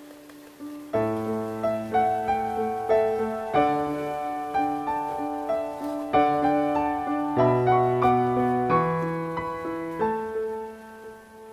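Background piano music, a melody of struck notes, soft at first, fuller from about a second in and softening again near the end.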